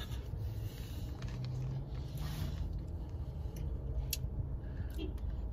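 Steady low hum of a car cabin, with faint bites, clicks and chewing as a child eats an ice pop.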